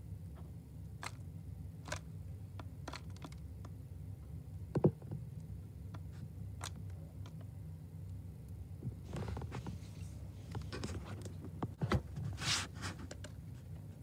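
A small songbird pecking and rummaging among black sunflower seeds in a plastic window-mounted feeder: scattered light clicks and scrapes, a louder knock about five seconds in, and a busier run of scraping in the last few seconds, over a steady low hum.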